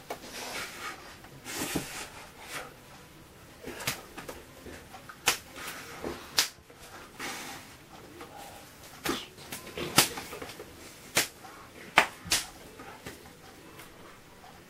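A string of sharp, irregular finger snaps and hand slaps, the loudest about ten and twelve seconds in.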